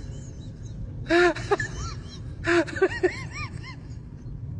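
Two short bursts of high-pitched, breathy non-speech vocalising, about a second and a half apart, each trailing off into a few quick rising-and-falling yelps, over a steady low rumble.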